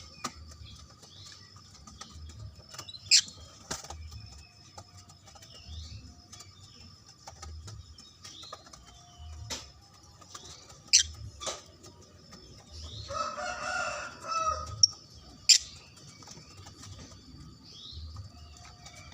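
Lovebirds calling: scattered short, shrill chirps, a few of them loud, with a longer chattering call about 13 seconds in.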